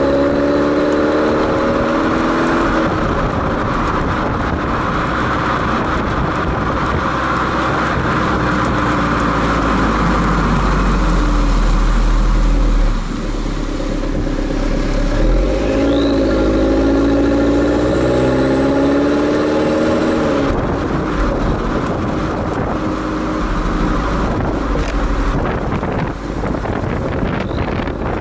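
Exhaust note of a 2014 Fiat 500L's 1.4-litre turbocharged four-cylinder, heard right at the tailpipe through the stock muffler while driving, with road and wind noise. The engine note falls in pitch over the first few seconds, then climbs steadily under acceleration from about 15 seconds in until it drops away about 20 seconds in.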